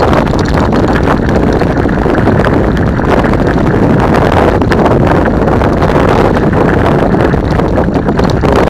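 Mountain bike descending a gravel dirt track: tyres crunching and the bike rattling over loose stones, under steady wind buffeting on the microphone. Loud and constant, with many small knocks.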